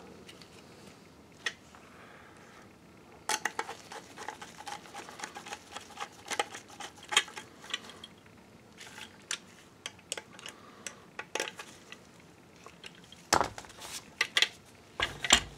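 Metal parts of a microscope stand clinking and clattering as it is put together by hand: a dense run of small clicks for several seconds, then sparser ones, and a few heavier knocks near the end.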